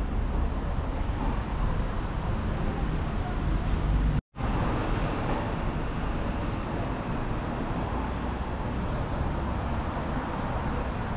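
Steady low rumble of road traffic and city background noise, broken by a short cut to silence about four seconds in.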